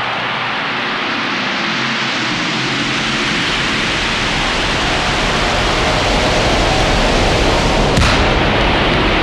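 Hip-hop track intro: a rushing noise sweep that slowly swells, growing louder and brighter, with a sharp hit about eight seconds in.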